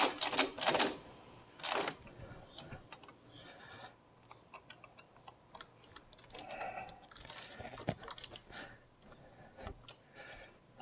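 Small irregular metal clicks and ticks of door lock hardware and a screwdriver being handled while a lock plate is repositioned, with a few louder handling noises in the first two seconds.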